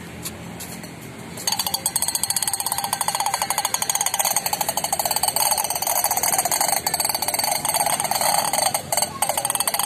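Toddler's wheeled plastic push toy clattering as it is pushed along, a fast, even run of clacks that starts about one and a half seconds in, with a few short breaks near the end.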